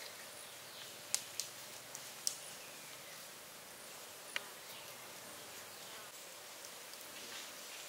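A few light clicks and taps of wood against bamboo, four in the first half, as a carved wooden piece is fitted into a bamboo tube, over a faint steady insect buzz.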